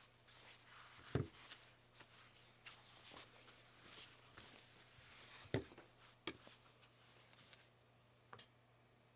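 Hands handling custom keyboard parts: scattered light knocks and clicks, the two loudest about a second in and about five and a half seconds in, with faint rustling between them.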